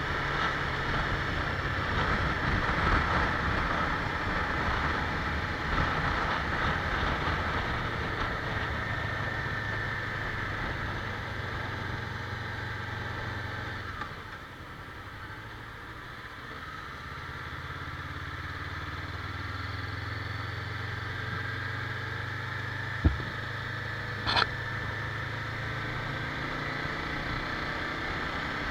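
Motorcycle engine running steadily, its hum easing for a few seconds around the middle and then picking up again. A sharp click and a brief high tone come close together about three-quarters of the way through.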